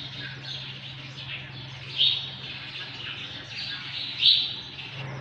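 Small birds chirping, with short, high chirps scattered through and the loudest about two seconds in and again just after four seconds.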